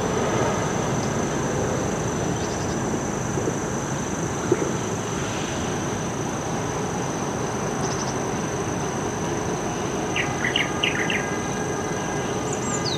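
Steady outdoor background rush with a constant thin high whine, and a few short bird chirps about ten seconds in and again near the end.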